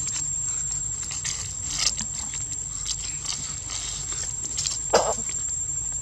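A young macaque making a few brief squeaky calls, the clearest one just before five seconds in, over steady low outdoor background noise.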